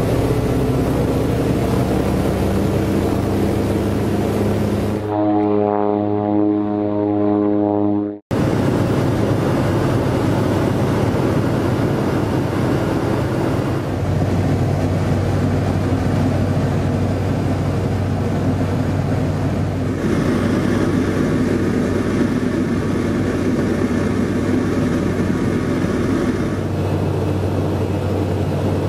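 Antonov An-2's nine-cylinder radial engine and propeller running, heard from inside the aircraft as a loud, steady drone with a low hum. The sound changes abruptly a few times, about 5 s and 8 s in with a brief dropout, where the shots cut.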